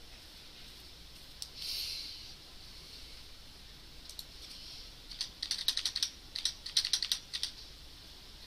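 Computer keyboard keystrokes while code is being edited. A few scattered key presses and a brief soft rustle near two seconds in, then a quick run of about a dozen taps from about five seconds in as blank lines are deleted.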